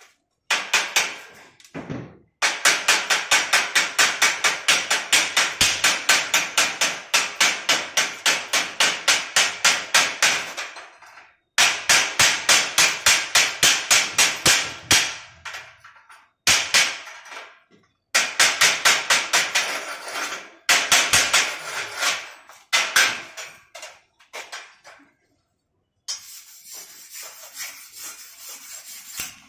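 Rapid hammer blows on metal, about four a second, in runs of several seconds with short breaks between them. Near the end the blows give way to a quieter, steady rasping noise.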